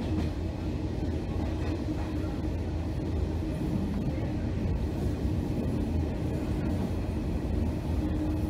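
Passenger train coach running along the track, heard from inside: a steady low rumble with a steady hum over it.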